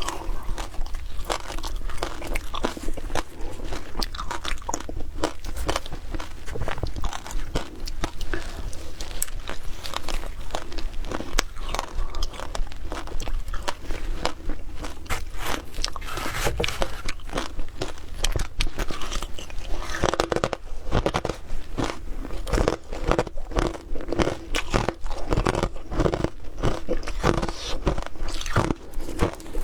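Shaved ice being bitten and chewed close to the microphone: a dense, continuous run of crisp crunches, several a second.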